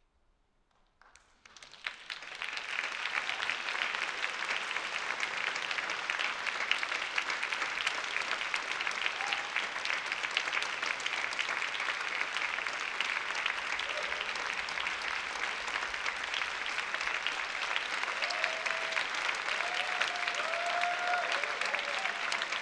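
Audience applauding, starting after a brief hush about a second in and quickly rising to steady, full applause; a few voices call out over it near the end.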